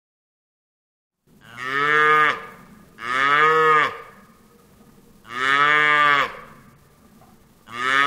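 Cow mooing: four long calls of about a second each, starting about a second and a half in, each dropping in pitch as it ends.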